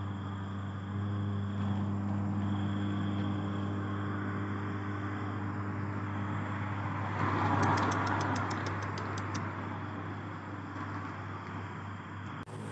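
Steady low hum of an idling engine, with dry cat kibble rattling as it is poured from a plastic bag onto a tray for about two seconds, around seven seconds in.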